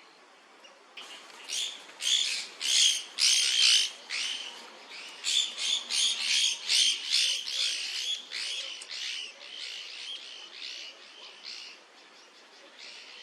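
Scaly-bellied woodpecker calling: a fast series of loud, repeated call notes in two runs, the second run fading away near the end.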